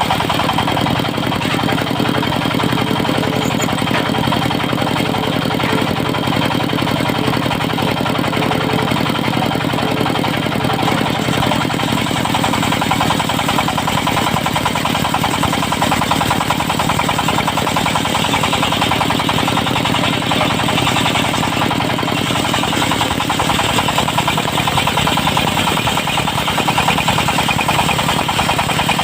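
Diesel engine of a mobile circular sawmill running steadily at a constant speed, driving a 70 cm circular saw blade.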